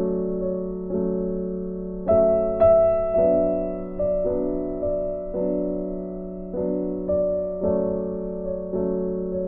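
Background piano music: slow chords struck about once a second, each ringing out and fading.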